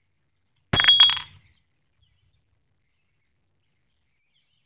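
One sharp metallic clink about a second in, ringing briefly, as steel bearing parts from a scroll compressor are knocked together.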